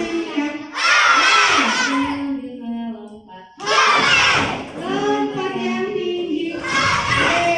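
A class of young children shouting and singing together in loud outbursts during a call-and-response game song, with a short lull about three seconds in.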